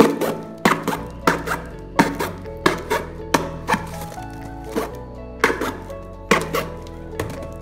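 A pointed metal tool stabbing drainage holes through the side of a corrugated cardboard box: a series of sharp jabs, roughly one or two a second, over background music.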